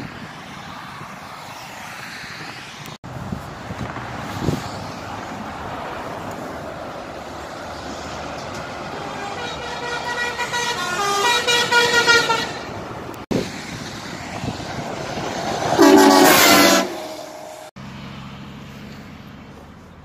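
Truck air horns sounding over passing traffic and wind noise. Midway a multi-tone horn sounds for about four seconds, stepping through several pitches. After a cut, a second horn gives a short, very loud low blast about three-quarters of the way through.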